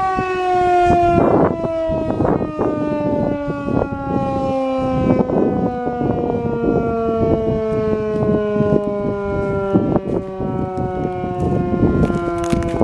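ASC T-128 outdoor warning siren sounding a full-alert test, its steady tone gliding slowly down in pitch as the siren winds down.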